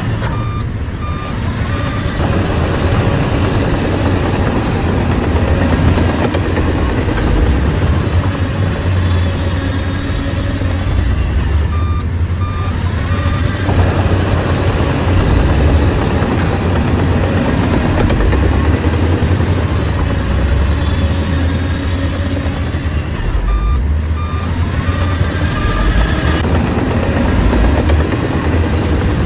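Heavy bulldozer diesel engine running steadily, with a reversing alarm beeping in three short runs: near the start, in the middle and near the end.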